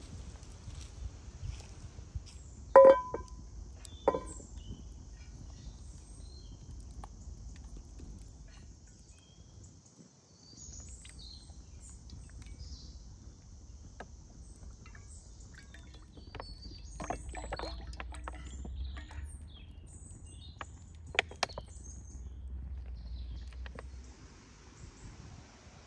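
Outdoor ambience with a steady high insect drone that drops out for a while past the middle. Two sharp knocks with a brief ring come about three and four seconds in, and scattered light clicks and knocks follow later.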